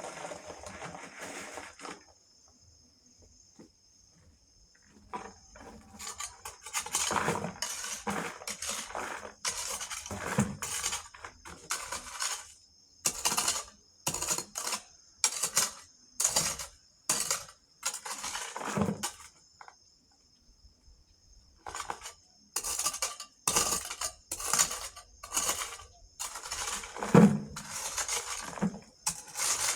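A metal spade scraping and scooping gravel and sand in quick repeated strokes, about one a second, pausing for a few seconds after the start and again about two thirds of the way through.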